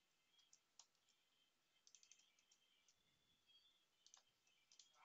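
Very faint computer keyboard and mouse clicks: a few single clicks, with short quick runs of keystrokes about two seconds in and near the end.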